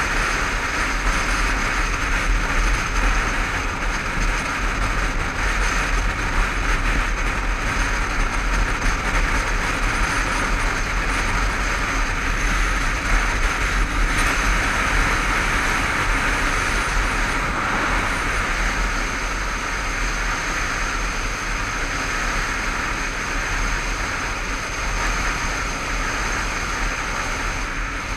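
Steady wind rush and road noise over the Honda CBF500 motorcycle's engine cruising at speed, picked up by a helmet-mounted camera.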